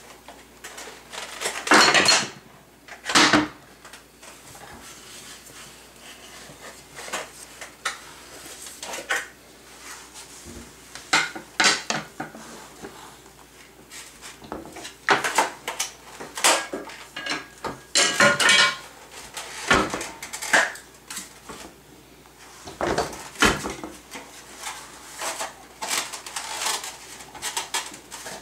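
Kitchen utensils clattering and knocking as they are pulled out of a cabinet and dropped, with plastic items rattling, in irregular clatters with brief pauses between them.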